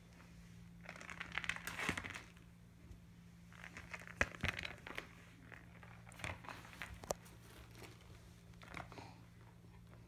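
Akita puppy mouthing and chewing a hollow red plastic ball: bouts of crinkly, crackling plastic noise with sharp clicks from teeth on the shell, over a steady low hum.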